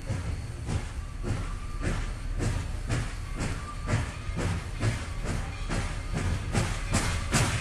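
Steam locomotive chuffing: a steady rhythm of exhaust beats about three a second over a hiss of steam, the beats coming quicker and louder near the end as the engine gathers speed.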